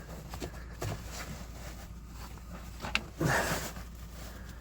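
Faint handling noises over a low steady hum: a few small clicks, a sharp click about three seconds in, then a short scraping rustle.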